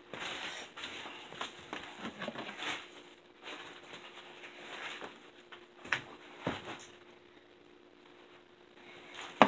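Faint rustling and shuffling on a plastic tarp, then two short knocks about six seconds in as someone sits down on a plastic milk crate.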